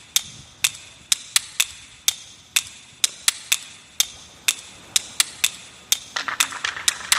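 Sharp, irregular clicks, a few a second, from the wheels of a departing passenger train passing over rail joints and points. About six seconds in, a steady rattling noise from the moving train joins them.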